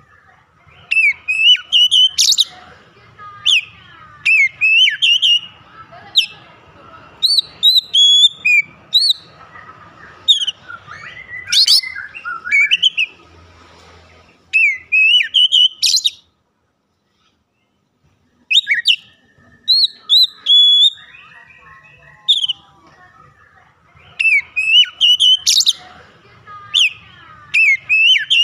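Oriental magpie-robin in full song: fast, loud phrases of clear whistled notes sliding up and down, mixed with sharp chirps. The song breaks off for about two seconds midway, then resumes.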